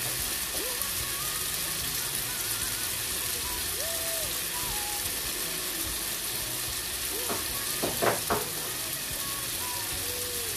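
Tomato and onion sauce sizzling steadily in a frying pan, with a short cluster of sharp knocks about three quarters of the way through.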